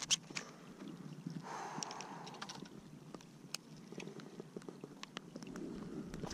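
Light rain with scattered sharp ticks and a short hiss about a second and a half in, then a low wind rumble on the microphone near the end.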